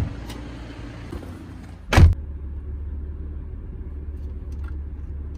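Car door handle clicking, then the car door shut with a heavy thud about two seconds in. A steady low rumble of the car follows, heard from inside the closed cabin.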